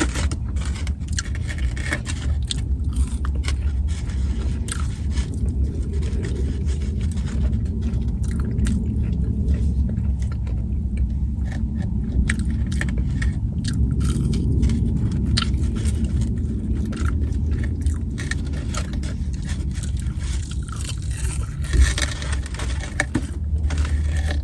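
Rustling and scraping of takeout food packaging, with chewing and biting, over a steady low hum.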